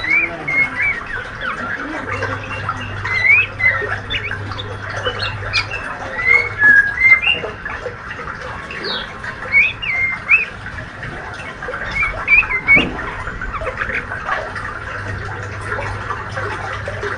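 Juvenile male white-rumped shama (murai trotol) giving a long string of short, quick chirps and twitters, mostly rising in pitch: the young bird's practice chattering (ngriwik) as it learns to sing.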